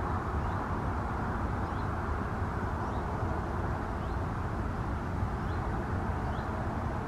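Steady hum of distant motorway traffic, with a few faint, short, high bird chirps over it.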